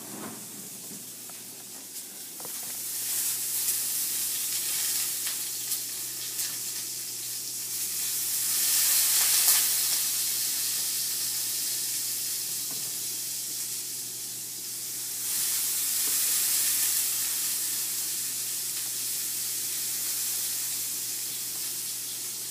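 Hot oil sizzling in a pan as cut lemon pieces are set down in it. The sizzle swells louder about two and a half seconds in, most strongly near the middle, and again about two-thirds of the way through.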